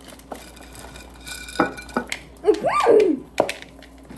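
Kitchen bowls and utensils clinking and knocking during baking, with a short wordless vocal sound that rises and falls in pitch about two and a half seconds in.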